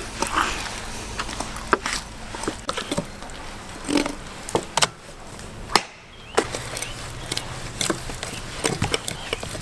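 A knife chopping python meat into small pieces on a cutting board: irregular sharp knocks, a dozen or so spread unevenly over several seconds.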